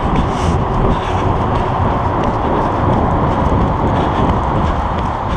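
Steady roar of road traffic on the elevated interstate overhead, heard from beneath the highway deck.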